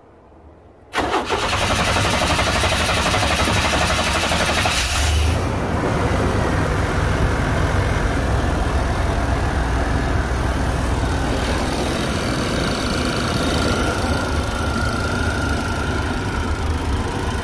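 A 1989 Chevy Astro's 4.3-litre throttle-body-injected V6 starts about a second in and keeps running steadily. For its first four seconds the sound is brighter, then it settles to an even run. It starts once the oil pressure switch connector has been wiggled into good contact, which is the cure for its hot-soak no-start.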